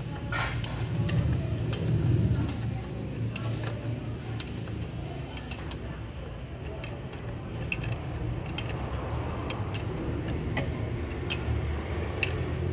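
Irregular sharp metallic clicks and clinks from a jaw puller being worked on a car AC compressor's clutch plate, over a steady low rumble.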